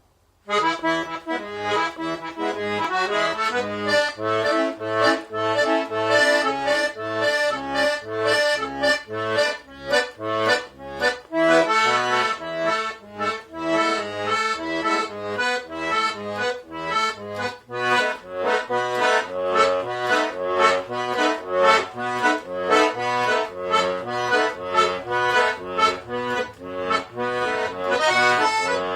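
Accordion playing a tune: a melody over a steady accompaniment of alternating bass notes and chords. It starts about half a second in.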